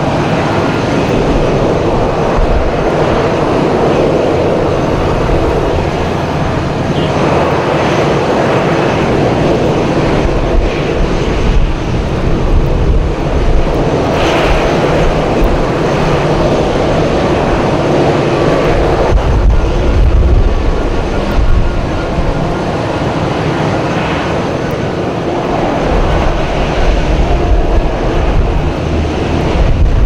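Boeing 737-800 jet engines running, a steady noise under blizzard wind buffeting the microphone in rumbling gusts, heaviest about two-thirds of the way through and near the end.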